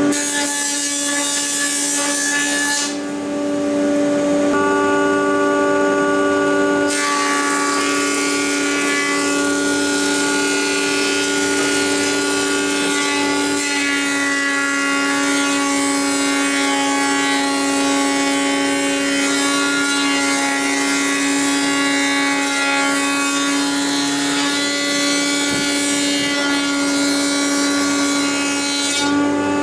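Elektra Beckum HC 314 G planer-thicknesser running with a steady, loud whine as boards are fed through and planed. The sound dips briefly about three seconds in and the tone shifts a few seconds later.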